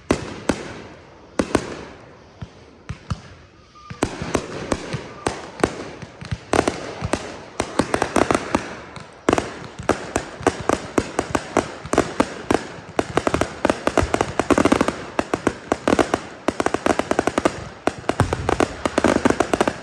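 Fireworks display going off: a few separate bangs, then from about four seconds in a dense barrage of rapid bangs and crackles, many a second.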